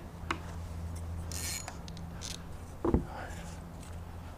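Handling noise on a plastic sit-on-top kayak: a few light clicks and a brief scrape, then a louder knock about three seconds in, over a steady low hum.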